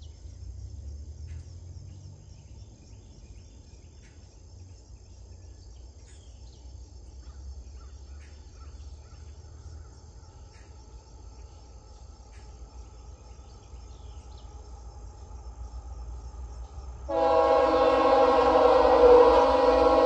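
Faint low rumble of an approaching diesel freight train under a steady high insect drone, then, near the end, a loud locomotive air horn sounding one held chord of several tones for about three seconds.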